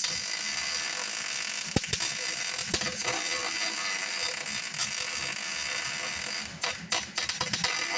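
MIG welder arc crackling steadily as a bead is run, then stopping and restarting in short spurts near the end.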